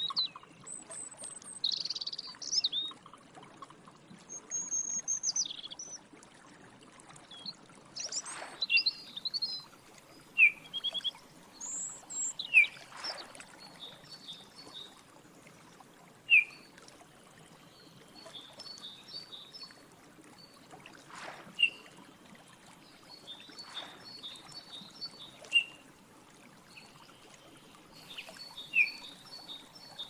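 Several small birds calling and singing: high whistled glides and quick trills of short notes, with a sharp single chirp every few seconds standing out as the loudest sound. Underneath is a steady trickle of running water.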